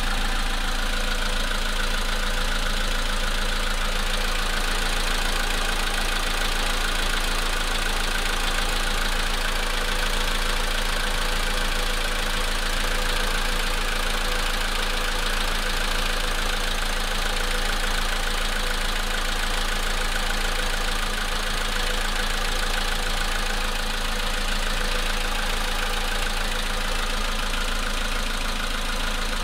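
Volkswagen Polo sedan engine idling cold, with a steady knocking from the engine that the owner says is getting worse.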